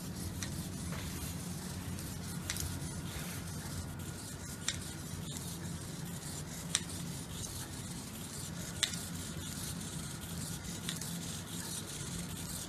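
Small hobby servos of a 3D-printed five-servo walking robot running as it steps, with a faint steady whine and a scuffing hiss. Its plastic feet click sharply on the hard floor about every two seconds.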